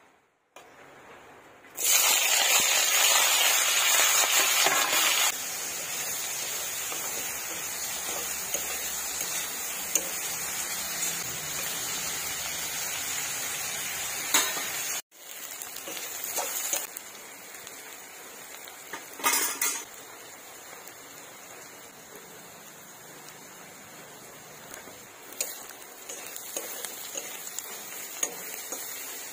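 Sliced onions and green chillies frying in hot oil in a steel karai. A sudden loud sizzle starts about two seconds in and settles into a steady sizzle. Later the frying is quieter, with the spatula scraping and clinking against the pan as it stirs.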